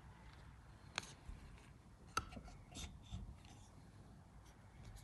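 A few faint clicks and light knocks as a metal diesel engine piston is turned and handled on a tabletop, the two sharpest about one and two seconds in.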